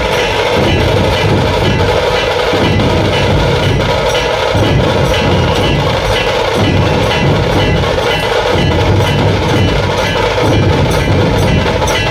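A large dhol-tasha troupe playing: many big barrel dhol drums pounding a driving rhythm together with tasha drums, dense and loud without a break.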